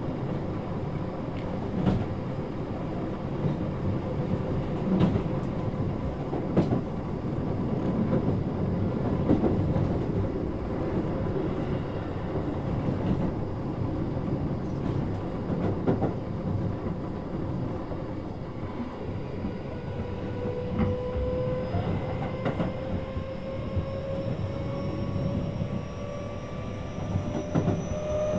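Keio 8000 series electric train running at speed, heard inside the car: steady running noise with occasional sharp knocks of the wheels over rail joints. From about two-thirds of the way through, the whine of its Hitachi IGBT-inverter traction motors comes up and slowly rises in pitch as the train picks up speed under power.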